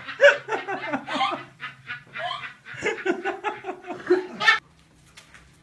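Hearty laughter in rapid, repeated bursts, cutting off abruptly near the end.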